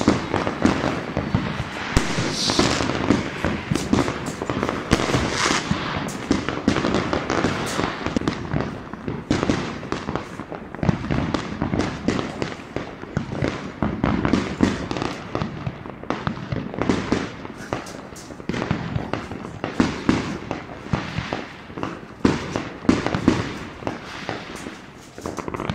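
Many fireworks and firecrackers going off together, a dense, unbroken barrage of overlapping bangs and crackles.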